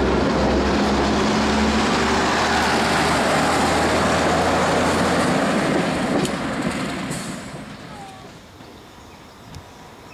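Class 108 diesel multiple unit passing close and drawing away: its underfloor diesel engines hum under the rumble of the wheels on the track, then the sound fades out about six to eight seconds in, with a couple of sharp clicks as it goes.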